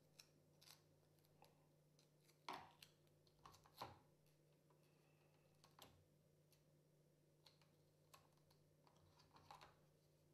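Quiet handling noise of small laptop parts: scattered soft clicks and rustles as sticky tape and small screws are handled in gloved hands, with two louder clicks about two and a half and four seconds in, over a faint steady hum.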